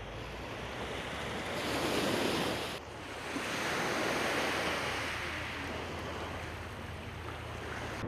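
Steady rushing, wind-like noise that swells about two seconds in and breaks off sharply near three seconds. A second, similar rushing noise follows, swelling and slowly easing.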